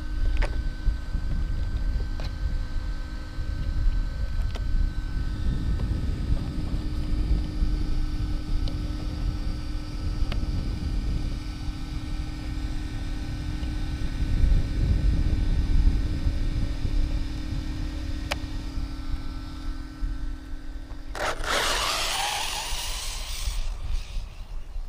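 Wind buffeting the microphone, then near the end a sudden loud burst of about three seconds: the Arrma Typhon RC buggy's brushless motor whining and its tyres on dirt as it launches at full throttle on a speed run.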